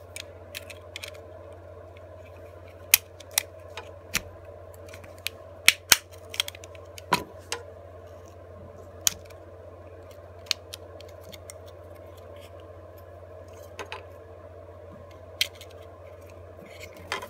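Irregular sharp clicks and taps of plastic and metal parts as an opened Remington electric razor's housing, battery and motor are pried apart by hand, over a steady low hum.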